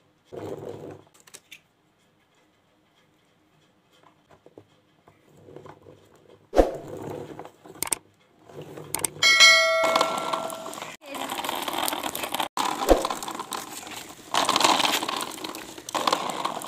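Light clicks and knocks of plastic toy parts being handled. About nine seconds in comes a short ringing bell chime, the subscribe-button sound effect. After that, steady noise with louder swells runs through the rest.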